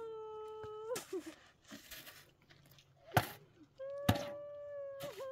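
A metal shovel striking and scraping stony ground, with two sharp loud strikes about three and four seconds in and lighter scrapes before them. Behind it, a long wailing call held steady on one pitch sounds for about a second at the start and again over the last second and a half.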